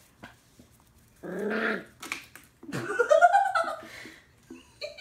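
Scottish terrier puppy growling in play, then a longer whining call that rises and falls in pitch about three seconds in. A sharp click comes about two seconds in.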